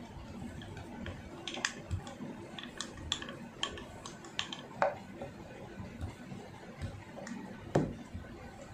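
Kitchen utensils and dishes clinking and knocking during cooking: a run of scattered sharp clicks, one with a brief ring a little before the middle, and the loudest knock near the end.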